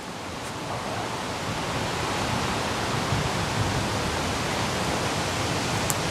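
Wind rushing through leafy trees, with wind buffeting the microphone. It grows louder over the first couple of seconds, then holds steady.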